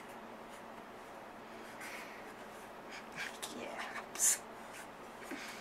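Faint whispered voice and rustling of movement on the floor mat, with a short sharp hiss-like rustle about four seconds in.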